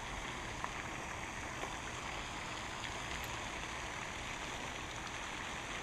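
Steady rushing background noise, even and unchanging, with a couple of faint clicks in the first two seconds.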